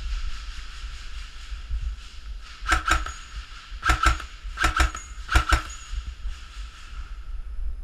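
Airsoft guns firing in quick pairs: four double shots, each a sharp snap, within about three seconds in the middle, over steady wind rumble on the microphone.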